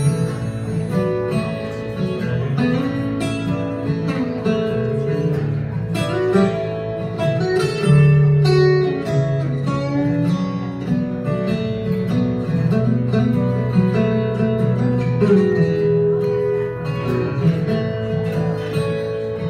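Two acoustic guitars playing an instrumental break, a mix of strummed chords and picked notes.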